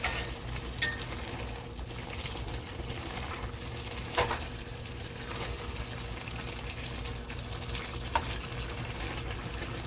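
Pot of collard greens boiling steadily on the stove, with three short clinks spread through it.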